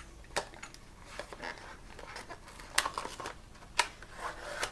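Clear plastic blister pack on a cardboard backing card being handled and pried open: light crinkling of the stiff plastic with scattered clicks, two sharper ones about three seconds in and a second later.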